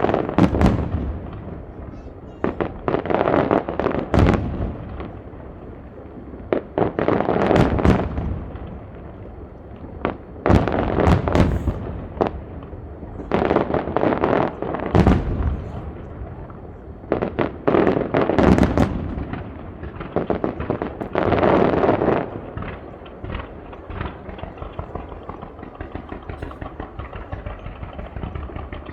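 Starmine fireworks barrage: volleys of many shells bursting in quick succession, dense bangs and crackling coming in loud waves every few seconds. Near the end the volleys give way to smaller, scattered pops and crackles.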